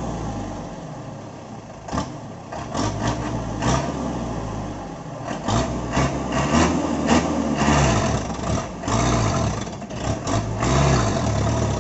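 Toyota Dyna 115 PS truck's diesel engine revving in repeated surges under load as the fully loaded truck tries to drive out of deep sand. Its rear wheels spin, and scattered knocks sound throughout.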